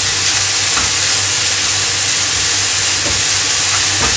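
Minced chicken breast frying in a pan over high heat, a steady sizzling hiss.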